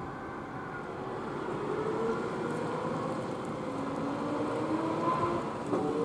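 Tractor engine running under load as it pulls a loaded grain trailer away, its note sliding up and down in pitch.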